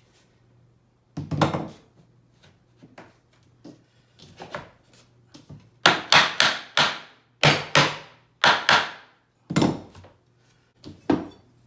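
Claw hammer knocking a scrap-laminate tapping block against the edge of a laminate plank to drive its joint closed: one sharp knock about a second in, a quick run of about eight knocks between six and nine seconds, and two more near the end.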